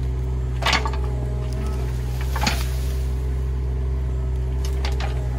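Bobcat E20 mini excavator's diesel engine running steadily under work, with sharp metallic clanks from the bucket and arm about a second in, again about two and a half seconds in, and near the end as it digs into the leaf pile.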